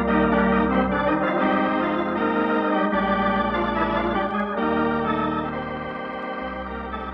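Organ music bridge: sustained chords that change every second or two and grow gradually quieter over the last few seconds.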